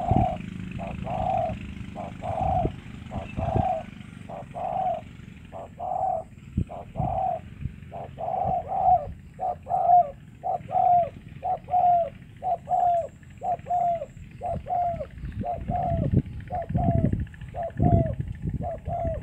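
Spotted dove cooing in a long run of short coos, about one a second at first and speeding up to about two a second, the later coos dropping in pitch at the end.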